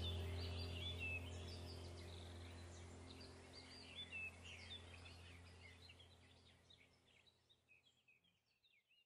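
Small birds chirping over a low sustained musical drone, the whole sound fading out steadily to silence at the end.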